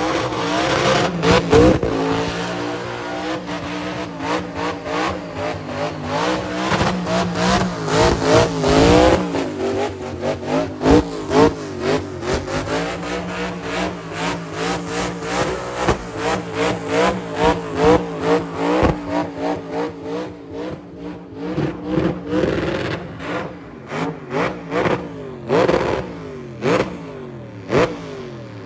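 Burnout car's engine revved hard and repeatedly during a smoky tyre-spinning burnout, the revs rising and falling in quick waves about twice a second. In the last several seconds the revving breaks into separate sharp blips before dying away near the end.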